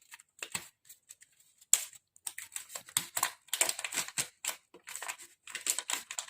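A sheet of A4 paper being folded and creased by hand: irregular crinkles and rustles, coming thicker from about two seconds in.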